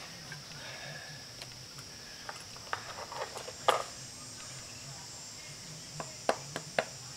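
Steel knife blade cutting into a wooden hand-drill hearth board: four sharp separate cuts near the end, after a short clatter of handling about halfway through. A steady high chirring of insects sits underneath.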